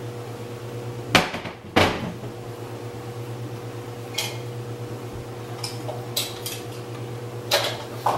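Kitchen clatter: dishes and utensils knocking and clinking, two sharp knocks close together a little over a second in, then a few lighter clinks, over a steady low appliance hum.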